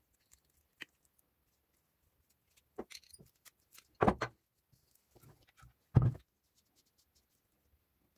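Loose metal parts of an old breast drill being handled on a workbench: light metallic clinks, then two heavy knocks about two seconds apart.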